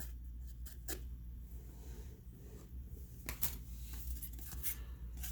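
Trading cards being handled and flipped through, with a few short rustles and clicks, over a steady low hum.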